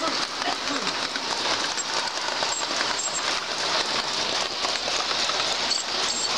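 O scale two-rail model steam locomotive running along the track, its wheels and gearing making a steady hiss.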